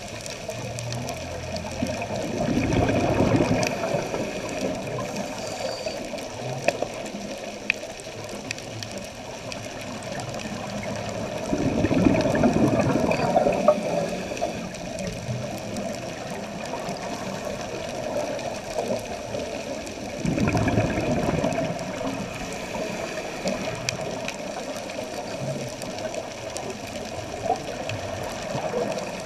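Scuba diver's regulator breathing heard underwater: exhaled bubbles gush out three times, about nine seconds apart, over a steady underwater hiss.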